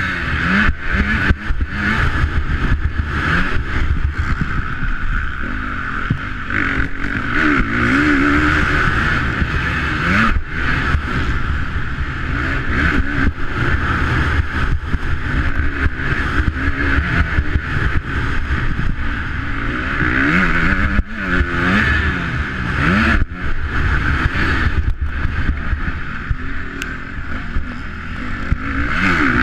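Motocross bike engine revving hard and dropping back again and again as the rider accelerates and shifts around the dirt track, heard from a camera on the bike. Frequent short knocks and rushes of noise run through it.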